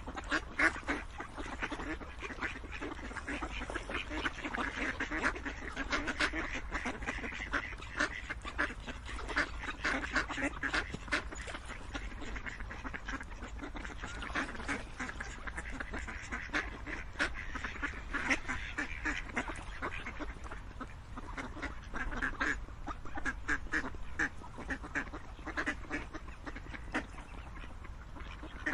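A flock of ducks quacking without pause, many short calls overlapping one another.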